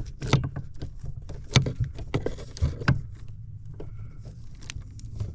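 Scattered metallic clicks and taps of a wrench and Torx bit being worked on the shifter-bracket screws of a truck's steering column, over a steady low hum.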